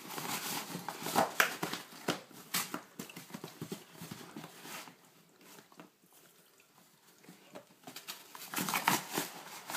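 Great Dane tearing at and crunching a cardboard box: irregular crackling rips and knocks of cardboard, with thuds of paws. The noise dies down to near quiet a little past the middle and picks up again near the end.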